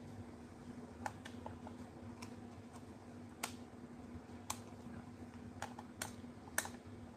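Small hard objects being handled, giving about eight sharp clicks and taps at irregular intervals over a faint steady hum.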